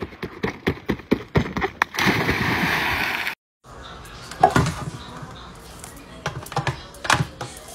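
Rapid footsteps pounding along a floating dock, then a loud splash of someone jumping into the lake, which cuts off abruptly. After that, knocks and clatter of a tin can being handled and set into an electric can opener on a kitchen counter.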